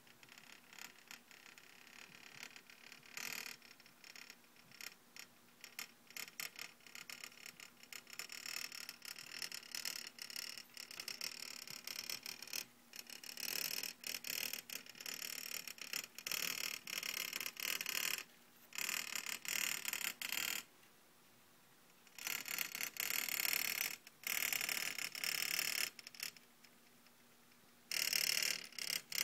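Coil-type putt-putt steam boat running, its copper coil vibrating against a mini Altoids tin and the bottom of a Coke can to give a fast, high metallic rattle. The rattle grows louder partway through, then stops and restarts several times with short pauses.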